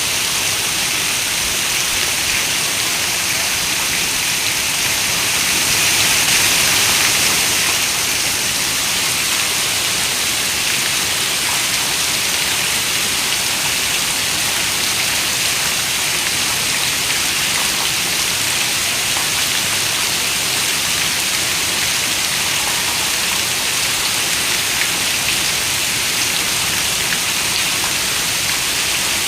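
Steady rain falling and pattering on a surface, an even hiss with its energy in the upper range, swelling briefly a few seconds in.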